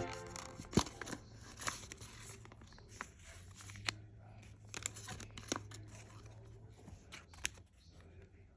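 Faint rustling and crinkling of bags and packaging, with scattered light clicks and taps as items are handled.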